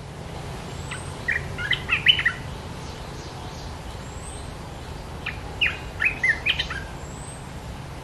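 Olive-winged bulbul song: two short phrases of quick, chattering notes, the first about a second in and the second about five seconds in.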